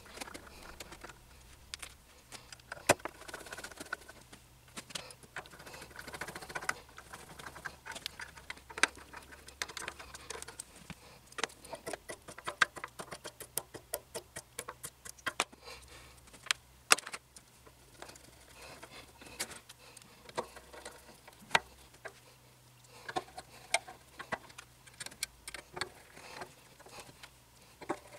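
Small screws being driven by hand with a screwdriver into the frame of a resin 3D printer vat, clamping on a new FEP sheet: irregular small clicks, taps and scrapes of metal tools and screws.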